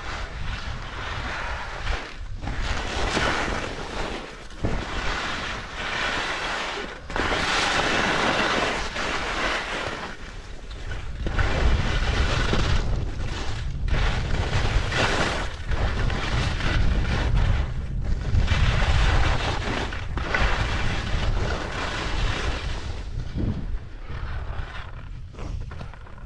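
Skis scraping and carving down firm, thin snow in surges a second or two apart, under heavy wind buffeting the microphone, which is strongest in the middle stretch.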